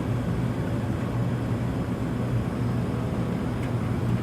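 Gas water heaters running at full fire, giving a steady low hum and rumble.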